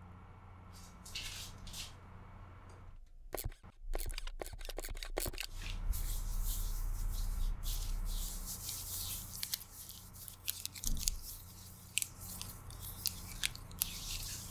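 Long fake nails clicking and scraping against one another close to a microphone. It is sparse at first, then about three seconds in comes a quick run of sharp clicks, followed by continuous high scratching with scattered ticks.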